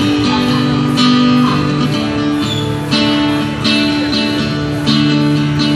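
Acoustic guitar strummed in full chords, with a new chord about once a second. It is an instrumental passage with no singing.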